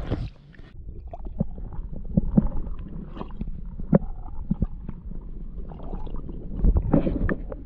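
Lunkerhunt topwater popping frog being twitched on the water surface, making irregular short gurgling pops, over a low rumble.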